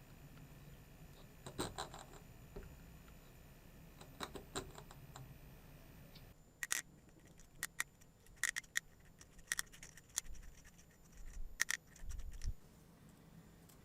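Small metal engine parts and hand tools clicking, clinking and scraping during hand assembly of a miniature four-cylinder OHV engine. Scattered sharp clicks at first, then a busier run of clinks over the second half.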